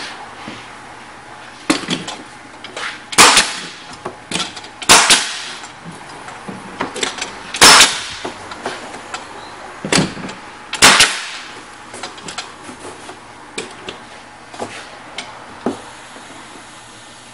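Pneumatic wide-crown walking stick stapler firing 1-inch crown staples: about half a dozen sharp, loud shots at uneven intervals, with lighter clicks and knocks in between and after.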